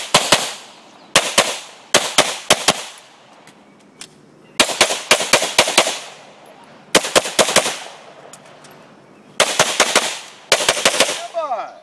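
Glock 34 9mm pistol fired in quick strings of two to four shots, the strings separated by pauses of about one to two seconds. Each shot is loud and sharp, with a short ring after it.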